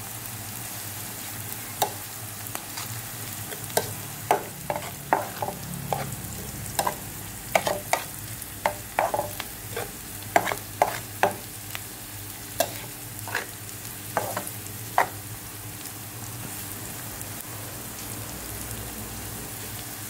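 Chopped shallots, garlic and ginger sizzling steadily in hot oil in a non-stick frying pan, being sautéed until crisp. A plastic spatula stirs and knocks against the pan, with irregular sharp clicks for most of the time. The clicks stop about 15 seconds in, leaving only the sizzle.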